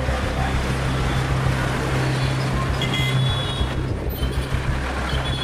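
Street traffic led by a large bus's engine running close by, a steady low hum over road noise, with a few faint high-pitched squeaks about three seconds in.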